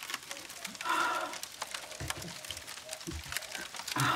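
Close-up eating sounds of someone chewing spicy instant noodles, with many small mouth clicks and the fork clicking in the bowl. A short breathy sound comes about a second in and again near the end.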